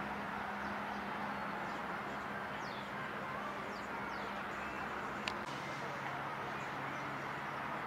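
A few faint, short descending chirps from house martins over a steady background of distant traffic noise and low hum, with one sharp tick about five seconds in.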